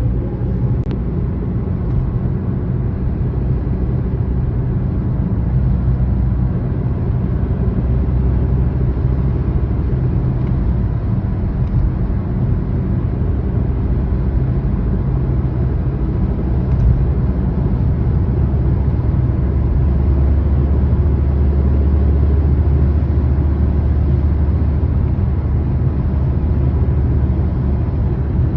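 Škoda Octavia A5 driving, a steady low rumble of road and running noise, with a few faint knocks from the front end, the knock the owner is trying to trace.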